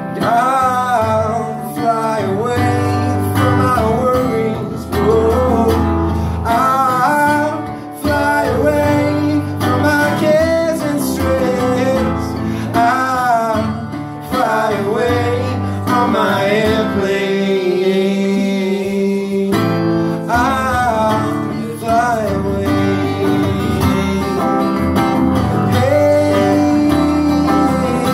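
Instrumental break of a folk song: guitars strummed and picked, with a lead melody of bent, sliding notes above them.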